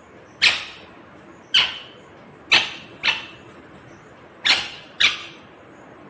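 Rose-ringed (Indian ringneck) parakeet giving six short, harsh screeches. Each one cuts in sharply and trails off quickly, and the last four come in two quick pairs about half a second apart.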